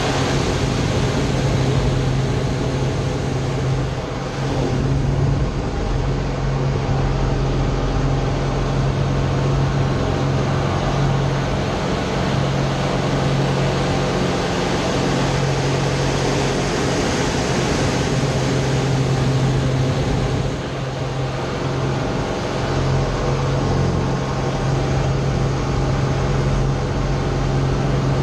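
Slick 540 aerobatic monoplane's six-cylinder Lycoming piston engine and propeller droning steadily, heard from inside the cockpit with airflow rushing over the canopy. The engine note dips briefly about four seconds in and again about twenty-one seconds in.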